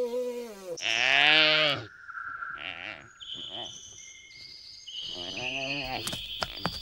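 Animal calls: long bleating cries with a falling pitch, the loudest about a second in. High, steady whistled notes change pitch in steps between the calls, and more bleating cries and a few sharp clicks come near the end.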